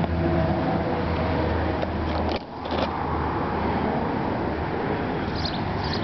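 Wind blowing across the microphone, a steady rumbling noise. A low steady hum under it stops about two and a half seconds in.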